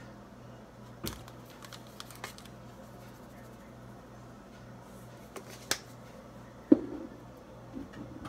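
Plastic garlic powder shaker being handled and shaken over a skillet: a few light clicks and rattles, then one sharp knock about two-thirds of the way in, over a steady low hum.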